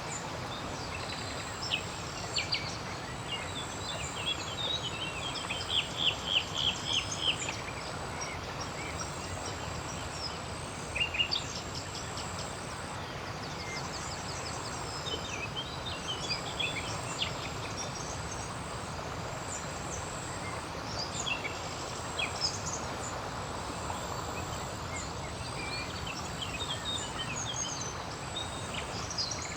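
Birds calling and singing over a steady outdoor background hiss, with the loudest a quick run of repeated notes about six seconds in and another sharp call about eleven seconds in.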